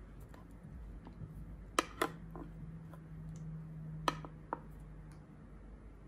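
A metal tin can being handled over groceries: a few sharp clicks and taps, a pair a little under two seconds in and another pair about four seconds in, over a faint steady hum.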